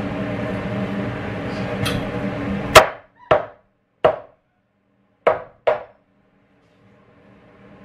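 Five sharp knocks on wooden framing lumber, unevenly spaced over about three seconds, as studs are knocked into place in a wall opening.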